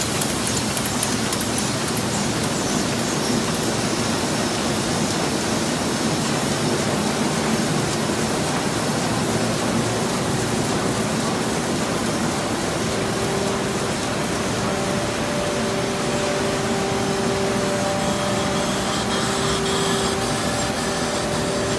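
A 1996 Heidelberg Speedmaster SM102 eight-colour sheetfed offset press running: a steady, dense mechanical rush, with a faint hum coming up about halfway through.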